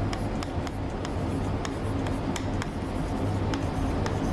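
Handwriting: short scratchy strokes and light taps of a pen or marker, over a steady low hum.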